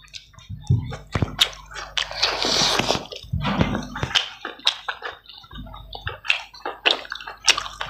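Close-up wet chewing and lip smacking of people eating chicken and rice with their hands, with irregular sticky clicks and squelches.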